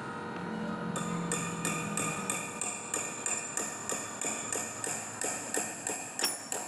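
Hammer striking metal in a steady rhythm, about three ringing blows a second.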